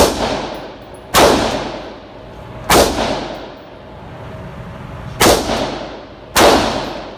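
Five gunshots fired at uneven intervals, each a sharp crack followed by an echo that dies away over about a second.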